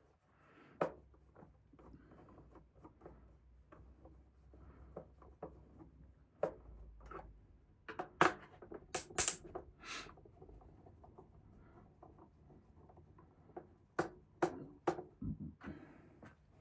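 Handling noises from a radio being opened up by hand: scattered small clicks, taps and scrapes, with a few sharper, louder clicks a little past the middle.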